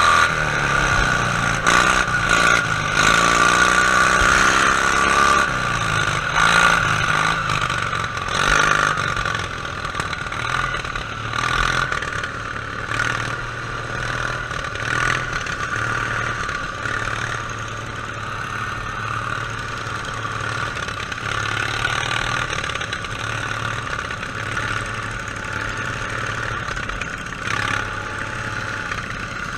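Racing lawn tractor's Briggs & Stratton V-twin engine running hard, heard from on board. Its pitch rises and falls through the first several seconds, then runs steadier, with scattered thumps throughout.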